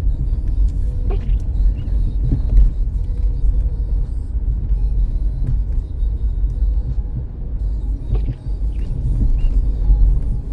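Steady low rumble of a 2005 Dodge Caravan heard from inside the cabin while driving slowly: engine and tyre noise on a snowy road.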